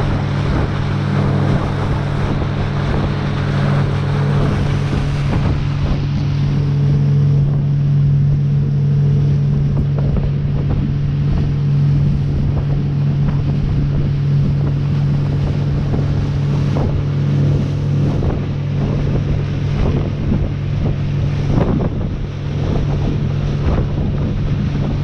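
Small lobster boat's engine running steadily at speed, a constant low drone, under the rush of the bow wave spraying past the hull and wind on the microphone. A few sharper slaps of water against the hull in the last third.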